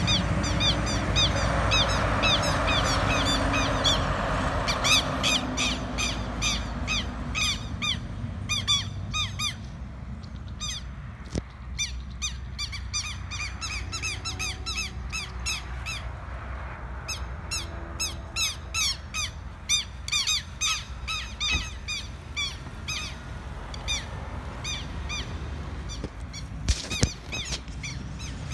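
Southern lapwings giving long series of shrill, repeated alarm calls, several a second in bursts, scolding a red-legged seriema, over a low rumble that fades after the first several seconds.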